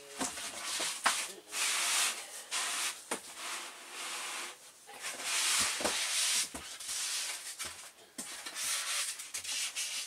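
Packing material being handled in a cardboard shipping box: irregular bursts of rustling and scraping, with a few sharp knocks.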